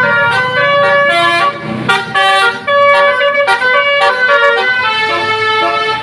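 Basuri 'telolet' musical air horn on a bus playing a quick tune, several pitched horn notes changing every fraction of a second, with no pause between them.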